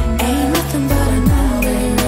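Background pop music: a beat of deep drum hits that drop in pitch, under a wavering held melody line.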